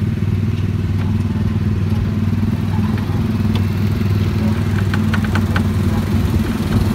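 Steady low mechanical hum, like a running motor or engine, with a few light clicks about five seconds in.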